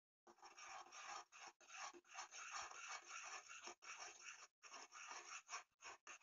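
A metal spoon stirring and scraping around a small metal saucepan of boiling milk tea, in short rasping strokes with brief breaks.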